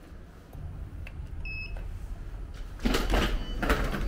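A short electronic beep about a second and a half in, over a low rumble. From about three seconds in comes louder clattering and rustling handling noise.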